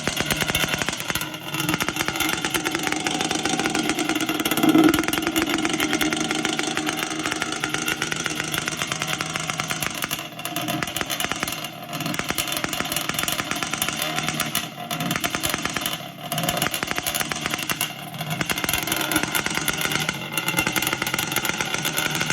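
Yamaha Banshee's 350 cc twin-cylinder two-stroke engine running loud and being revved, with a louder rise about five seconds in and several brief drops in the second half.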